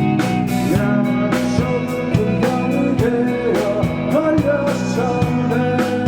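Rock band playing live: guitars, bass and drums, with a drum hit about every half second and a melodic line bending up and down over the top.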